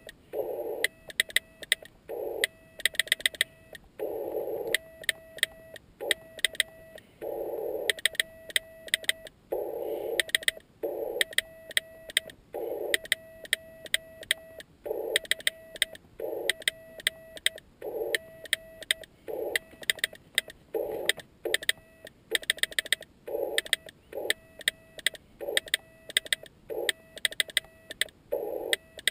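Morse code (CW) on a Yaesu FT-817ND transceiver: a single mid-pitched beep keyed on and off in dots and dashes at a slow pace, some stretches with band hiss around the tone. Clusters of sharp clicks come from the homemade Morse key.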